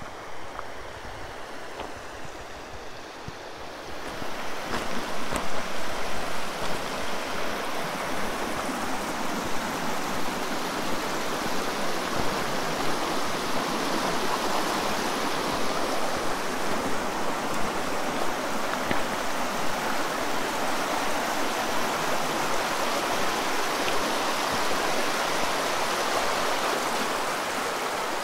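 A mountain river rushing: a steady, even water noise that gets louder about four seconds in and then holds.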